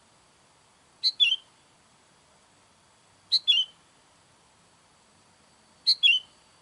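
Sooty-headed bulbul (kutilang) giving a short two-note call three times at even intervals, each a sharp note followed by a quick falling note, used as a lure call for wild bulbuls.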